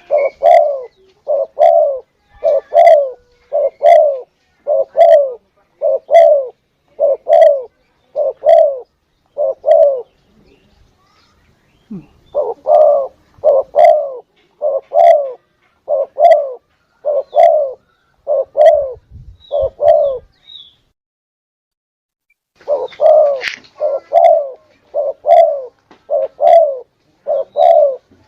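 Spotted dove (tekukur) cooing as a hunting lure call: runs of quick, closely spaced coo notes that break off twice for a couple of seconds before starting again.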